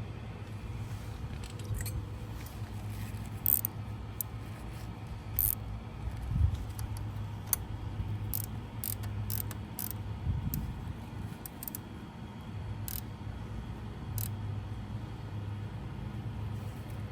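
Hand tools clicking and clinking against metal at irregular intervals as the gear shift lever's bolt is fitted and tightened, over a steady low hum.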